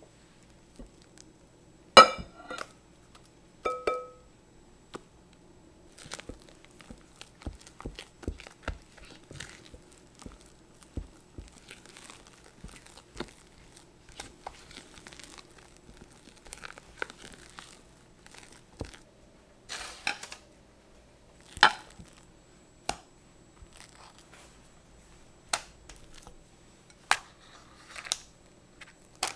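Silicone spatula folding and scraping whipped cream and mascarpone in a glass bowl: soft squishes, scrapes and taps, with two ringing clinks on the glass about two and four seconds in. Later the cream is spread into a parchment-lined glass dish, with the paper crinkling.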